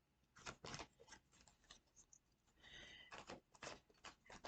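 Near silence with faint scattered clicks and light taps, and a brief scrape about two and a half seconds in.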